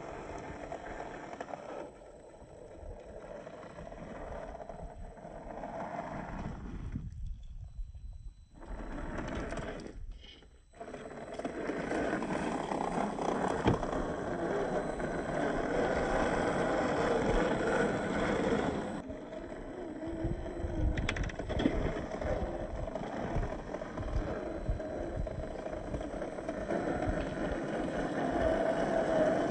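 1/10-scale RC crawler's brushed 27-turn electric motor and geared drivetrain whining and rising and falling with the throttle as it crawls over rocks, tyres crunching and scraping on stone and gravel. The sound drops out briefly twice in the first third and is louder after that.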